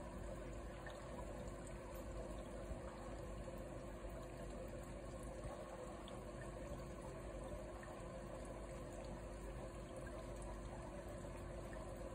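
Faint steady trickle of aquarium water circulating, with a low steady hum from the tank's equipment.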